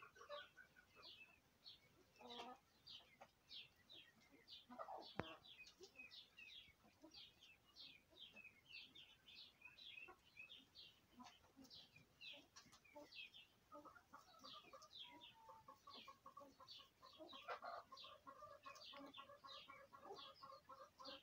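Romanian pheasant chicks peeping: short, high, downward-sliding chirps, about two or three a second, running on without a break. A lower, drawn-out call joins between about 14 and 20 seconds in, and there is one sharp click about 5 seconds in.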